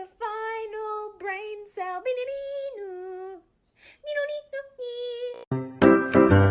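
A high-pitched voice singing unaccompanied, in short held phrases with a brief pause in the middle. About a second before the end, loud music with a keyboard and bass cuts in.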